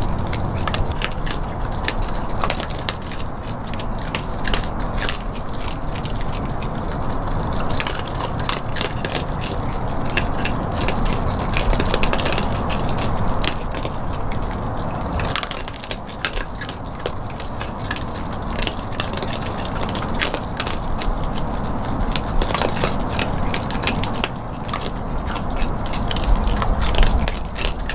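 Several raccoons chewing and crunching scattered bits of food, a dense run of irregular crunches and clicks over a steady low background rumble.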